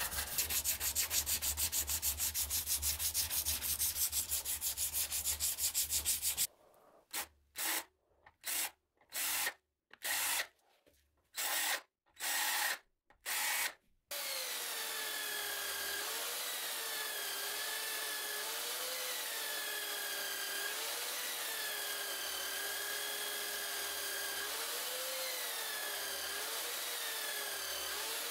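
A strip of abrasive cloth pulled rapidly back and forth over a wooden knife handle: fast, even rubbing strokes. These break off into several separate strokes with short silences between them. About halfway through, an electric buffing wheel takes over with a steady running sound whose whine wavers up and down in pitch as the steel blade is pressed against it.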